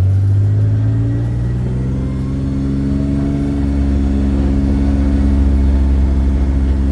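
Car engine and road noise while driving. The engine hum shifts in pitch over the first few seconds, then runs steadily.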